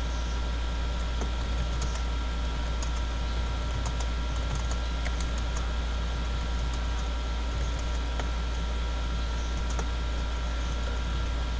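Computer keyboard typing: scattered light key clicks, irregular and sparse, over a steady low electrical hum and hiss.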